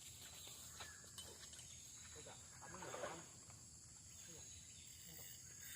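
Faint, steady high-pitched insect drone, with faint voices about three seconds in.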